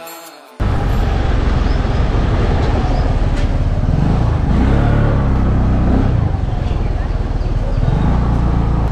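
Heavy low rumble of wind buffeting the vlogging microphone over a scooter running on the road, starting abruptly about half a second in as the music cuts off.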